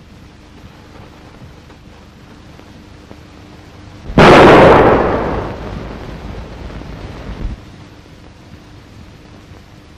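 A single handgun shot about four seconds in: a sudden loud crack whose echo dies away over about three seconds.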